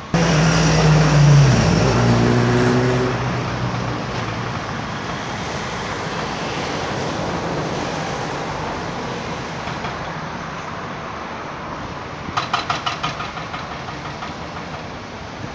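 A motor vehicle's engine running loud and close, its pitch dropping over the first couple of seconds as it passes and fades into a steady background of traffic and site noise. About twelve seconds in comes a quick run of about ten sharp clicks or rattles.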